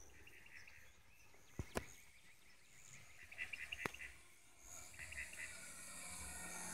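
Faint, steady buzz of a distant nitro RC plane's glow engine, growing louder over the last couple of seconds as the plane comes closer. Short chirping trills and a few sharp clicks sit over it.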